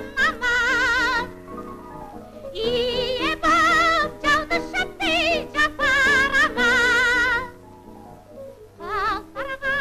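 Female operatic soprano singing long held high notes with a wide vibrato, in several phrases broken by short pauses, over instrumental accompaniment.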